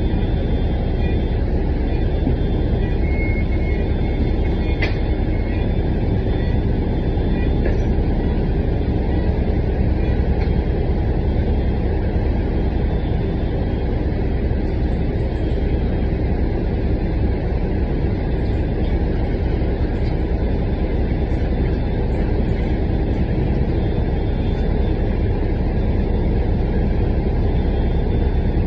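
City transit bus riding along, heard from inside: a steady engine and road rumble that runs on without a break.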